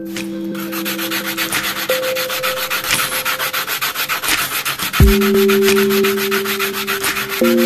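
Steel BMX fork tube being rubbed down by hand with an abrasive, in rapid, even back-and-forth strokes: a steady scratchy sanding noise that pulses with each stroke.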